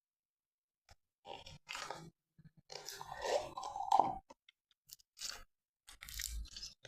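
Clear slime being handled and squished by hand, giving irregular sticky crackling squelches in short bursts, with the longest stretch about three to four seconds in.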